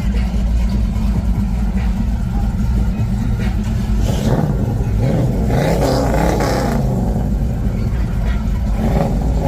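A car engine running with a heavy low rumble, revved up and down for a few seconds midway.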